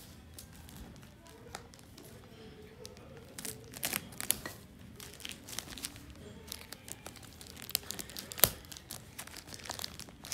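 Plastic courier wrapping of a parcel crinkling as it is handled and cut open with a box cutter, with scattered sharp crackles and clicks. One louder click comes about eight seconds in.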